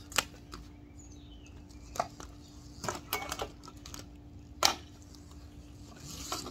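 Blue corrugated plastic pool vacuum hose being handled and uncoiled: a few sharp plastic clacks and knocks, the loudest a little past halfway, with a short run of rattling around three seconds in. A faint steady hum runs underneath.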